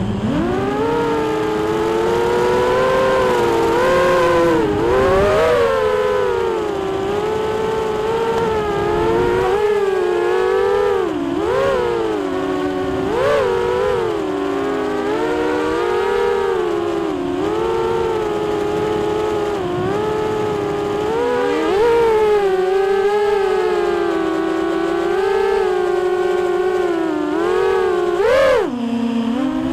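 Racing quadcopter's four Multistar Elite 2306 2150 kV brushless motors spinning 5-inch Dalprop props, heard from the camera on board: a loud whine whose pitch keeps rising and falling with the throttle. Near the end it drops sharply and surges back up.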